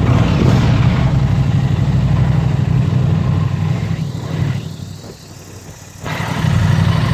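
Aprilia RS660's 659cc parallel-twin engine, with its 270-degree crank, running at a steady idle through the stock exhaust. The engine sound drops away briefly about four and a half seconds in and returns about a second and a half later.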